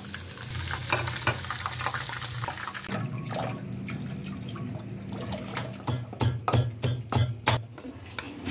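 Water pouring and splashing, then about seven quick sharp knocks a little over halfway through.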